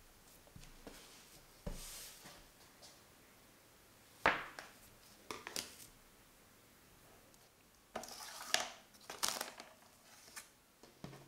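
Hands pressing and handling pie dough on a countertop, with a soft thud and a sharp knock. Near the end, plastic cling film crinkles and tears as it is pulled out and spread flat.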